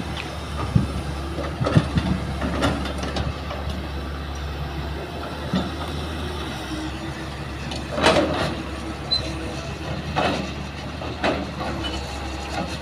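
Hitachi hydraulic excavator's diesel engine running steadily while it loads a dump truck, with irregular metal clanks and knocks from the bucket and boom. In the first few seconds soil and stones drop into the truck's steel bed; the loudest clank comes about eight seconds in.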